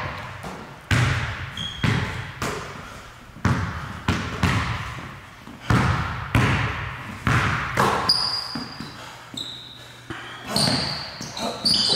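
Basketball bouncing on a hardwood gym floor, each bounce ringing out in the big room, irregular and roughly one a second, coming quicker near the end. Short high rubber-sneaker squeaks on the hardwood join in the second half.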